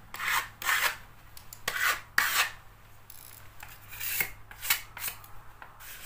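Filler being worked by hand into small damaged patches on a painted wall: a series of short, irregular rasping rubs against the wall surface.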